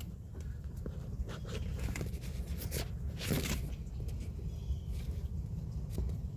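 Channel-lock pliers and hands working at a heat-seized heater hose fitting on the firewall: scattered clicks and scrapes over a steady low rumble, with a brief louder scuffle about three seconds in.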